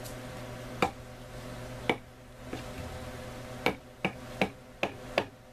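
Sharp knocks on the wooden support frame of the grow beds as it is worked on by hand: about eight short strokes at uneven spacing, coming closer together in the second half, over a steady low hum.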